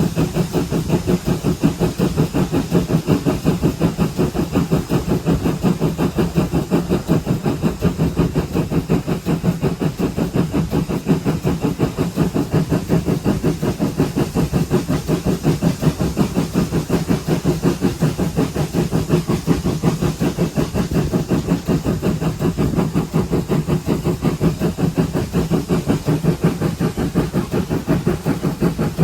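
GWR 5700-class pannier tank steam locomotive 7714 working along the line: its exhaust beats come in a fast, even rhythm, with a steady hiss of steam over them.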